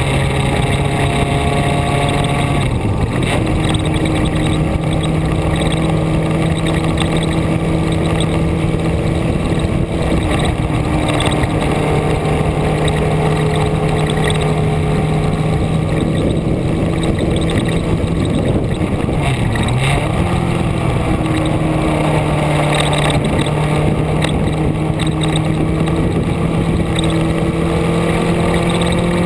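Vehicle engine running at a steady pitch under a constant rushing noise, the engine note dipping briefly and recovering twice, about three seconds in and again after about twenty seconds.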